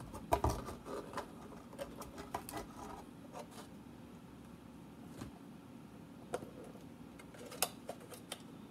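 Clear plastic bottle and airline tubing being handled: light plastic clicks and crinkles, busy for the first three seconds, then a few isolated ticks.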